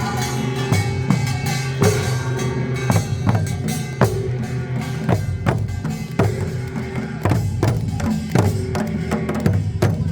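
Korean folk music from a traditional percussion band: drums and hand percussion beating a running rhythm of frequent sharp strokes, with a sustained melody held over them.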